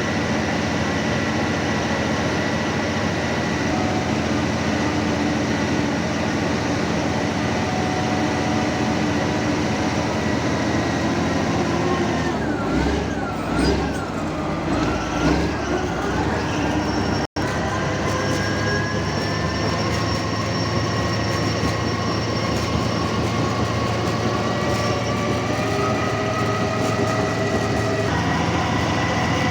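Heavy diesel machinery, a bulldozer, running steadily, with a wavering whine midway through. The sound drops out for an instant partway through, then carries on.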